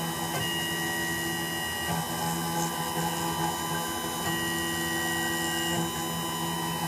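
Small CNC milling machine running steadily on an iPhone logic board, its spindle humming while the stepper-driven axes move in passes. Each pass adds a whine that comes on for about a second and a half, twice.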